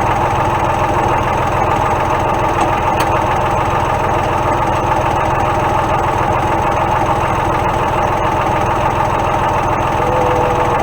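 Tractor engine idling steadily, with no change in speed.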